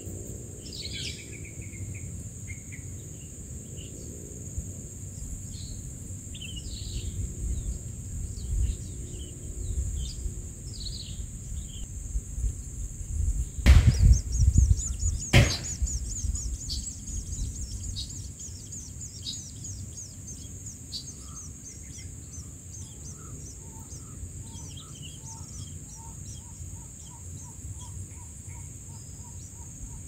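Long-tailed shrike nestlings begging with short, thin high chirps over a steady high insect drone. About halfway through come two loud knocks a second and a half apart, followed by a rapid run of high begging chirps; in the last third a regular series of lower notes, about two a second, sounds alongside.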